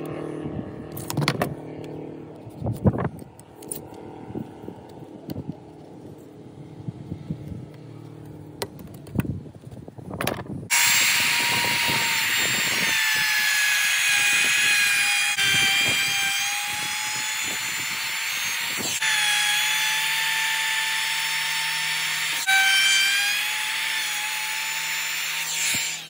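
Compact router running at high speed and cutting flutes into MDF board: a loud, steady high-pitched whine that dips slightly in pitch under load. It starts about eleven seconds in and is cut off sharply a few times. Before it comes a quieter low machine hum with several knocks.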